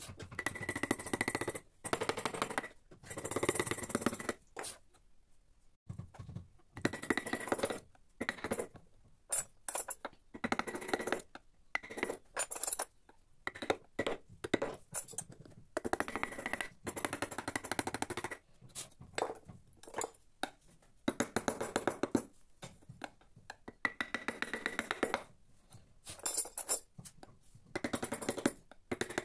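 Steel carving chisels and gouges cutting into teak in short bursts of rapid ticking and scraping, with metallic clinks from the steel tools.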